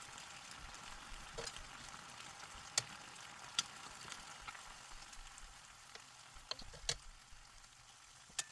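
Sizzling hotplate chicken dish sizzling faintly: a steady hiss with scattered sharp crackling pops, slowly dying down.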